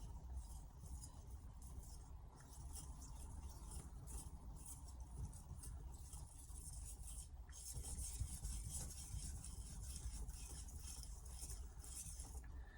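Carbon-steel knife blade scraping back and forth on an Altstone RIN splash-and-go whetstone in repeated sharpening strokes: a soft, raspy hiss. It is a hard, fast-cutting stone that takes off plenty of steel.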